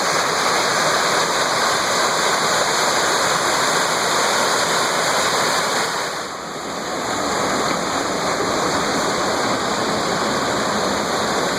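Waterfall rushing steadily, a dense hiss of falling water that dips briefly about six seconds in.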